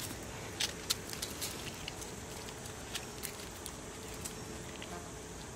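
Irregular sharp clicks and taps, a few close together in the first two seconds and a few more later, over a steady background hiss.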